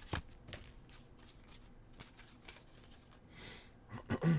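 Oracle card being drawn and laid down on a burlap-covered table: a faint tap at the start, a short papery swish about three and a half seconds in, then a few taps and a soft thump near the end as the card is set on the spread.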